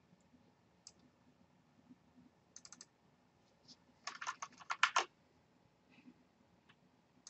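Clicks from a computer mouse and keyboard: a few single clicks, a quick group of four about two and a half seconds in, then a fast run of clicks between about four and five seconds in.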